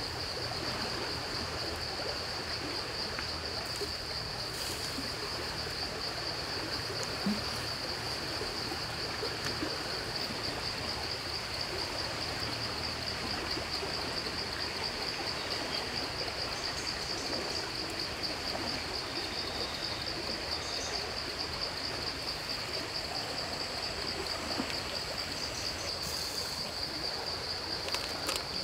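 Insects trilling in a steady high-pitched drone, with a constant hiss underneath.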